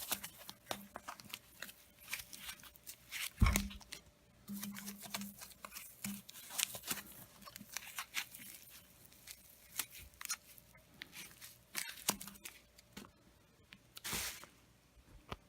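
Packaging being torn and handled while unwrapping a motorcycle rear stand: rustling, tearing and scattered clicks, with one sharp knock about three and a half seconds in and a longer rip near the end.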